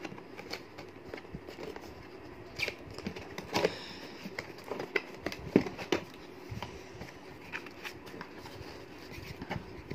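Cardboard box being handled and opened by hand: scattered scrapes, taps and rustles, with a few sharper clicks around the middle.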